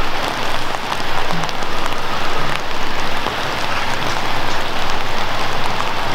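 Steady rain falling on a wooden dock and the lake around it: an even hiss with a few faint ticks of drops.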